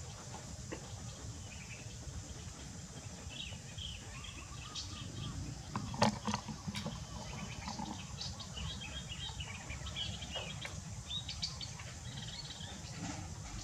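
Faint, scattered bird chirps over a steady low background rumble, with a sharp knock and a few clicks about six seconds in.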